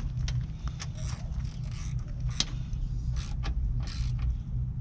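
Scattered clicks and light scrapes of plastic and metal as a projector headlight housing is handled and fastened with a hand tool, the sharpest click about halfway through, over a steady low rumble.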